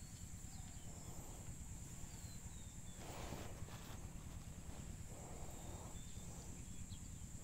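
Quiet outdoor ambience: a steady high-pitched drone over a low rumble, a few faint chirps, and a brief rustling noise about three seconds in.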